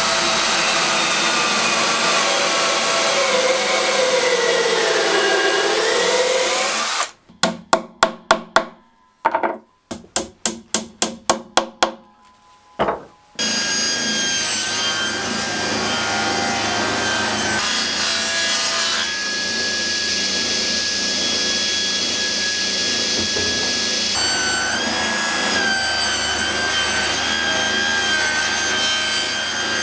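Cordless drill boring into wood, its pitch sagging under load after a few seconds. Then about fifteen sharp hammer blows in quick uneven runs, driving wooden dowels into the drilled holes. A table saw then starts and runs steadily while a board is cut, its tone changing for a few seconds in the middle.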